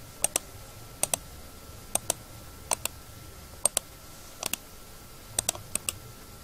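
Computer mouse buttons clicking, each click a quick double tick of press and release, about once a second. A faint steady high whine runs underneath.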